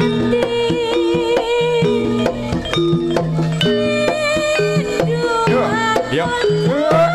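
Live jaranan accompaniment: a Javanese gamelan-style ensemble with repeated drum strokes under a melodic line that bends and slides in pitch, played loud through a large outdoor sound system.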